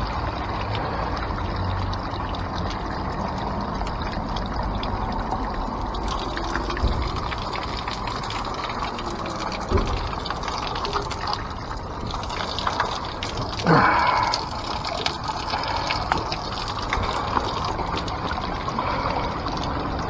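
Spring water running from a rock spout and pouring through a plastic funnel into a plastic bottle as it fills: a steady rush of water. A brief louder sound cuts in about two-thirds of the way through.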